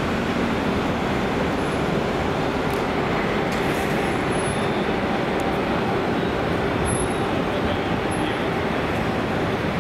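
Jet engines of taxiing airliners running at low power: a steady, even rushing noise with no change in level.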